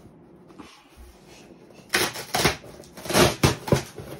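Cardboard of a Finnish maternity box scraping and rubbing as the inner box is handled inside the snug outer cardboard box, in several short noisy scrapes in the second half.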